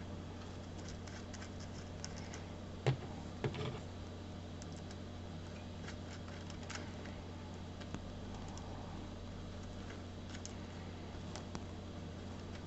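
Faint small clicks and scratches of fingers turning a small threaded SMA connector on a coax cable end by hand, with a sharper click about three seconds in, over a steady low hum.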